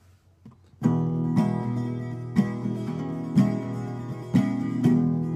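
Acoustic guitar starting about a second in, playing ringing chords with a stronger strum about once a second.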